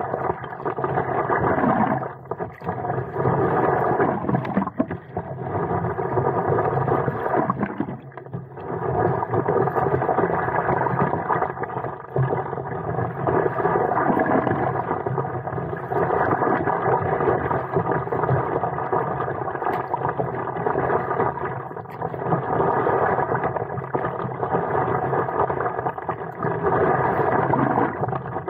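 Water rushing and splashing against a stand-up paddle board's nose as it is paddled along, with wind on the microphone; the sound swells and dips every few seconds.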